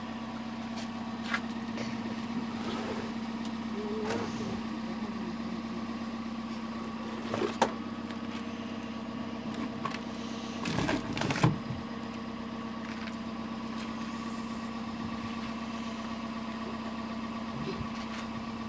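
Car engine idling with a steady hum, broken by a sharp knock about seven and a half seconds in and a short run of clunks about eleven seconds in.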